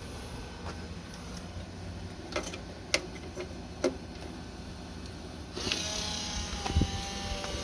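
A few light clicks, then about five and a half seconds in a steady hissing whir with faint tones starts up as the Emmeline animatronic is plugged in and powers on.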